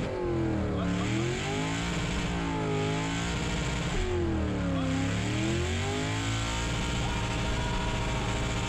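Cammed LS V8 in a Chevy S-10 burnout truck, heard from inside the cab during a burnout: the revs dip and climb back twice, then are held steady at high revs for the last few seconds.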